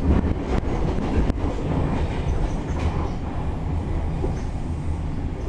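A MARTA rapid-transit rail car running along the track, heard from inside the passenger cabin. There is a steady low rumble, with a few sharp clicks in the first second or so.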